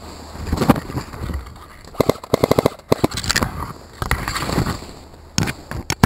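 Fast movement through dry fallen leaves and brush, with crunching and snapping. About two seconds in comes a quick run of about ten sharp cracks in under a second, like a full-auto burst from an airsoft gun.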